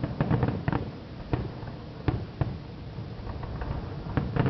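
Distant fireworks going off in irregular sharp bangs and crackles: a quick run of them in the first second, a few single bangs, and another run near the end, over a steady low rumble.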